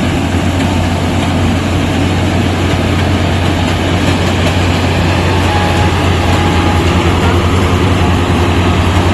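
Rice combine harvester running steadily: a strong low engine hum under a wide, even mechanical rush.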